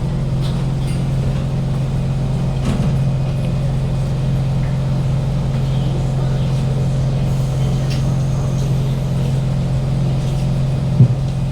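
Steady, loud hum inside a Kawasaki Heavy Industries C151 train carriage, with no rising or falling motor whine; the uploader reports this car's air-conditioning and ventilation as very loud and its own traction motor as silent. One sharp knock near the end.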